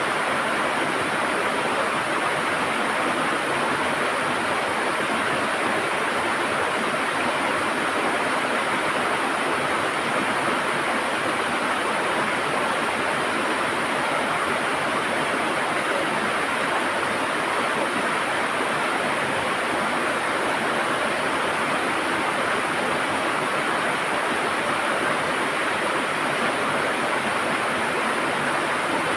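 River water flowing and gurgling steadily over rocks, a continuous rushing with no breaks.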